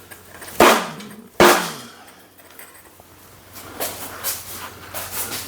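Rubber mallet striking a steel lifting magnet set in a steel welding table: two sharp knocks under a second apart, each with a brief ring, then a few lighter knocks. The magnet is being tapped to sit flush with the tabletop.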